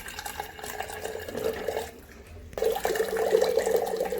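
Water pouring from a top-loading water cooler's tap. It pauses briefly about two seconds in, then runs again louder.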